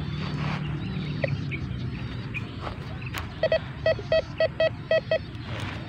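Metal detector giving a run of about seven short, same-pitched beeps, roughly four a second, as its search coil passes over the dug soil: the target tone for a buried metal object.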